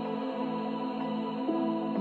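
Slow new-age instrumental music with held chords and a soft note coming in about one and a half seconds in.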